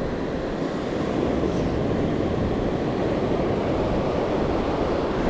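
A steady rush of surf washing onto the beach, mixed with wind buffeting the microphone.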